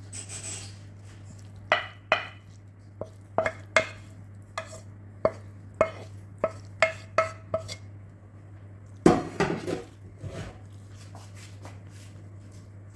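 A metal spoon knocking against a cooking pan while food is spooned out: a dozen or so short ringing clinks, then a louder clatter about nine seconds in.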